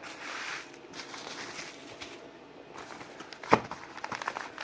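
Handling noises as chips and their packaging are moved about: rustling and crinkling, with one sharp knock about three and a half seconds in.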